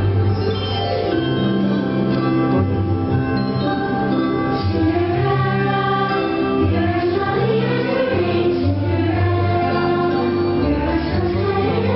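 Fireworks show soundtrack: orchestral music with a choir singing long, held notes over a sustained bass line.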